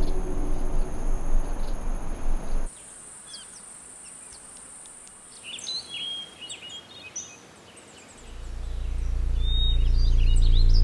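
A low droning music cue cuts off abruptly, giving way to quiet outdoor ambience: birds chirping and a steady high insect whine. Near the end a low rumble swells in and grows steadily louder.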